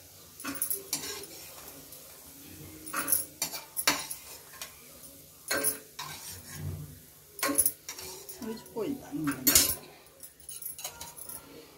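A spatula knocking and scraping against a kadai as soya chunks are stirred and turned in oil, in irregular strokes a second or two apart.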